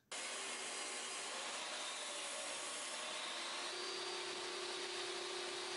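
Jobsite table saw running while ripping 3/4-inch MDF sheet into strips: a steady rushing noise that starts abruptly, with a faint steady hum joining about two thirds of the way through.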